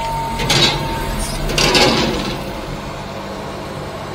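Daihatsu Hijet kei mini truck engine running as the truck pulls away at low speed. It picks up at the start, with two louder stretches of noise in the first two seconds, then settles to a steady hum.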